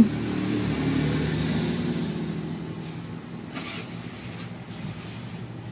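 A motor vehicle engine going by, loudest at first and fading away over a few seconds. A brief noise about three and a half seconds in.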